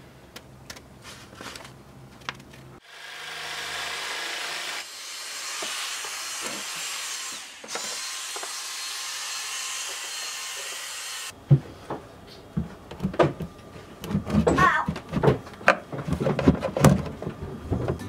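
Shop vacuum running steadily for several seconds, sucking up sawdust from a freshly cut opening in a wooden panel. It stops abruptly and is followed by a quick run of sharp clicks and clatter from hand tools.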